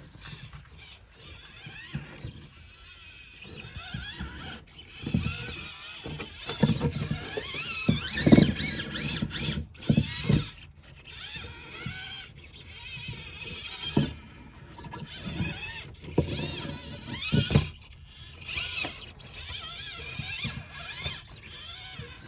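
Small brushed electric motor and gears of a 1/24-scale SCX24 RC rock crawler whining, rising and falling in pitch as the throttle changes, with irregular thumps and knocks as the little truck climbs and bounces over rocks.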